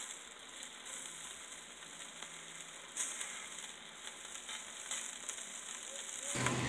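Chicken inasal sizzling over hot coals on a charcoal grill, a steady sizzle with a small pop about three seconds in.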